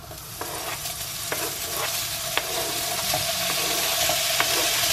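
Diced gammon sizzling as it is scraped into a very hot frying pan, the frying growing steadily louder as more meat goes in, with sharp taps of the spatula about every half second.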